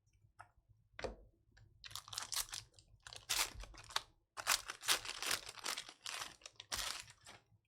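Plastic trading-card pack wrappers being torn open and crinkled: a run of crackling rips and rustles starting about a second in.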